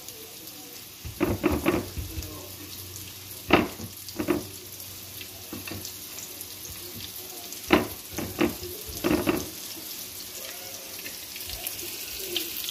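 Chicken cutlets frying in a pan of oil, a steady sizzle, with several short pats in three clusters as a raw breaded cutlet is pressed by hand into breadcrumbs on a plate.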